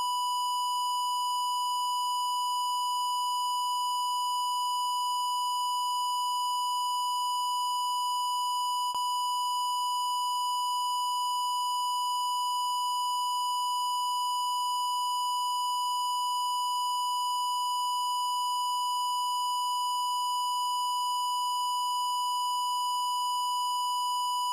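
Color bars test tone: a steady, unbroken 1 kHz sine-wave reference tone held at one pitch and level, with a faint click about nine seconds in.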